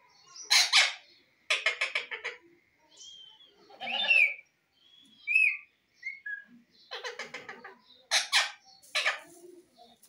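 Indian ringneck parakeet calling: a loud harsh screech, a fast chattering run of repeated notes, a few whistled gliding notes, then another chattering run and two more harsh screeches near the end.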